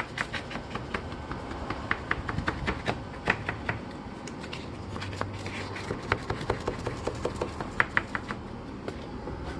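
Irregular light clicks and taps as a stainless steel porthole ring is held against the sanded fibreglass hull and a thin card is worked around its edge, testing whether the mounting face is flat enough to leave no gap.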